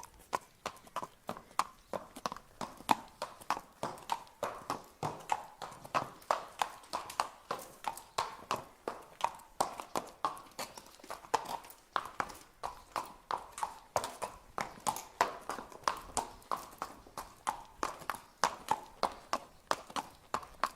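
A horse walking, its hooves clip-clopping in a steady, even rhythm of about three hoofbeats a second.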